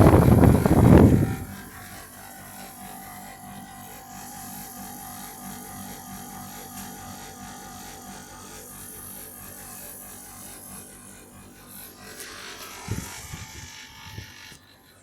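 Beko air conditioner running noisily: a loud buzzing rattle for about the first second and a half, then a steady hum with a faint whine, and a few brief low knocks near the end.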